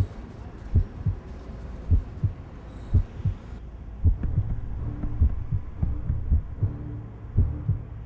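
Heartbeat sound effect: slow paired thumps, lub-dub, about once a second. A low steady hum joins about three and a half seconds in.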